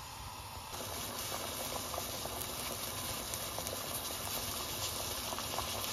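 A large stainless steel pot of water and chicken pieces boiling hard on a gas stove: steady bubbling full of small irregular pops, which starts abruptly about a second in after a quieter stretch.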